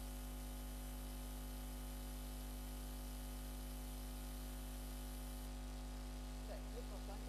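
Steady electrical mains hum with a buzz of higher overtones over a constant hiss. A faint voice begins near the end.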